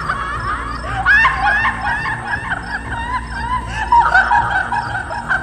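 A woman's voice cackling in a long run of rapid, high-pitched laughs: the eerie laughter of a female demon (pishachi) in a horror audio drama, over a low droning background score.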